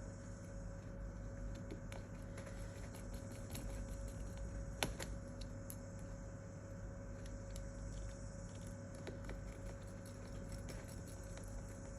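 Light, scattered clicks and taps of small phone parts being handled and fitted together on a Samsung Galaxy A10 during reassembly, with one sharper click about five seconds in, over a steady hum.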